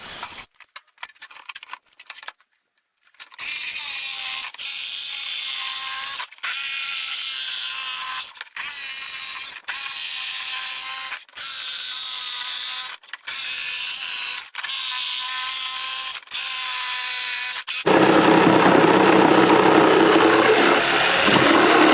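Power drill run in repeated short bursts, each spinning up in pitch, drilling a starter hole through a wooden board; a little before the end a louder, heavier jigsaw starts cutting the circle out of the board.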